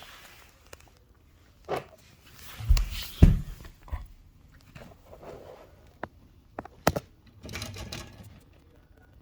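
Irregular handling sounds: scattered knocks and clicks with short rustles, and two heavy thumps about three seconds in, as tools and electrical cord are handled.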